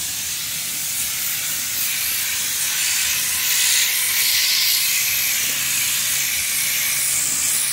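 Compressed air hissing steadily through a Raptor bedliner spray gun, the liner bottle screwed onto the gun, as it sprays a light texture coat of bedliner.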